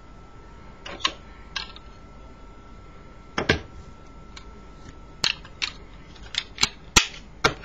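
A series of sharp metallic clicks from Zippo lighters being handled, about nine in all, irregular and coming closer together in the second half.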